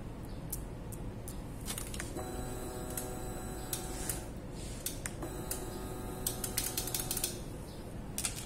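Stepper motors of a homemade Arduino 3D printer running under Marlin, jogging an axis: two runs of a steady whine, each about two seconds, with sharp clicks scattered through, clustered near the end of the second run.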